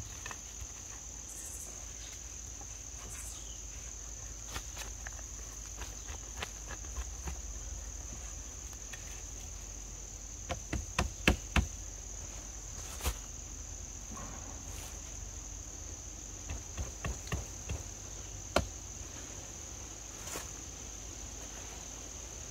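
Wooden sticks knocking together as a support pole is worked into place under a raised canvas bed. A cluster of sharp knocks comes about halfway through, with a few lighter ones later, over a steady high-pitched whine.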